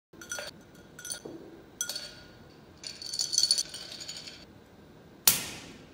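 Clinks and rattles of a glass cup being handled on a table: three short ringing clinks about a second apart, then a longer rattle in the middle. Near the end comes one sharp, loud knock, the loudest sound.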